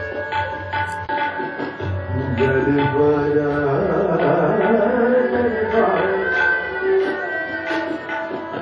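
Indian classical music: tabla playing a steady rhythm under held, sustained melodic tones.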